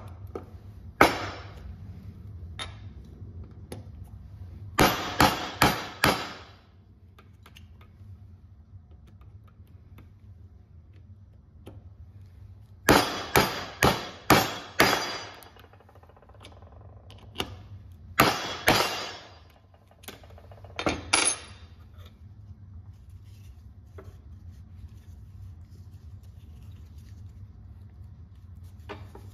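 Hammer striking a steel rivet setter held on copper rivets and burrs, setting them through a thick leather belt. Sharp, slightly ringing metal-on-metal blows come in quick groups of two to six, with pauses of several seconds between groups.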